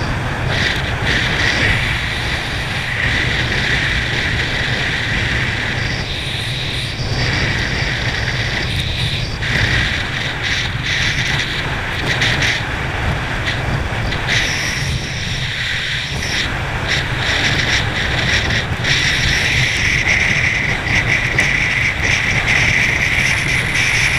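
Powerboat running at speed: a steady engine drone under the rush of its churning wake, with wind buffeting the microphone.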